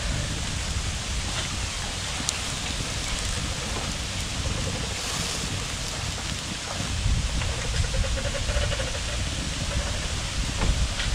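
Marinated pork belly sizzling over a charcoal grill: a steady hiss with a couple of sharp crackles, over a low rumble.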